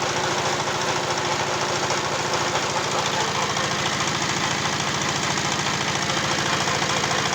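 Engine driving a pellet-making machine, running steadily at an even speed with a fast, regular beat.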